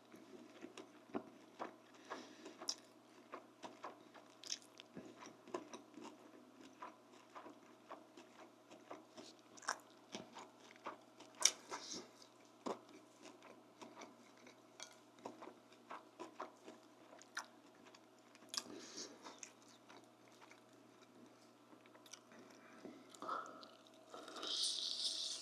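Close-miked eating sounds: a person chewing and biting crunchy food, with wet mouth clicks and lip smacking scattered irregularly. Near the end there is a louder rustling noise lasting about a second.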